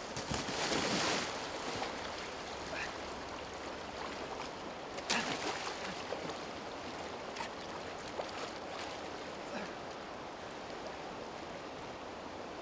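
River water flowing steadily over a stony bed, with splashing as someone wades through the shallows; a louder splashing rush about a second in and a sharp knock about five seconds in.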